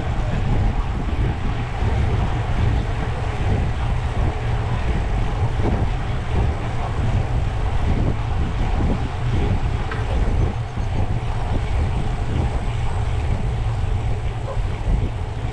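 Steady wind buffeting the microphone of a camera on a moving bicycle, a constant deep rumble with an even rushing hiss over it.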